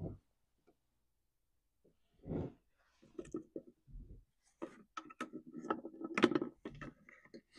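A bent-wire hook tool clicking and scraping inside a chainsaw's plastic fuel tank as the fuel filter is fished out. After a near-silent start there is a single knock, then a run of short clicks and scrapes.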